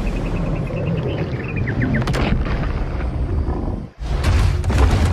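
Action-film soundtrack: heavy low rumbling and booms under dramatic music, breaking off for a moment about four seconds in and starting again just as loud.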